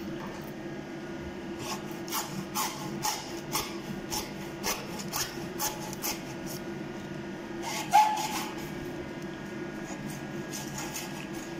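Hacksaw cutting through a blue spiral-reinforced PVC suction hose, rasping strokes at about two a second. A single sharp knock stands out about eight seconds in.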